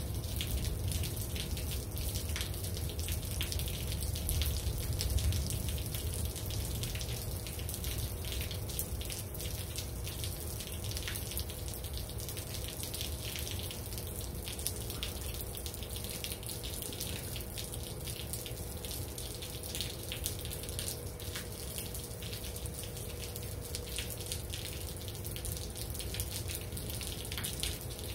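Steady rainfall with many close drops tapping and dripping, and a faint steady hum underneath.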